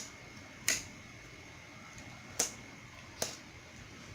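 Homemade glue slime making about four sharp, irregularly spaced clicking pops as it is handled.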